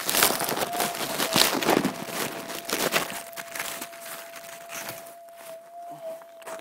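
Dry leaf litter and twigs crackling and rustling as the camera is handled and set down among them, loudest in the first three seconds and then fading. Underneath runs a steady mid-pitched hum with slight wobbles: the threshold tone of a switched-on Minelab metal detector.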